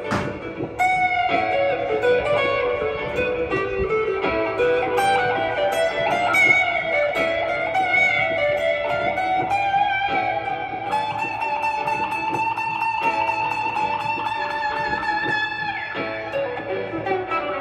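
Solo acoustic guitar picking melody lines, with sliding and bending notes and a long held note about two-thirds of the way through. A sharp click at the very start.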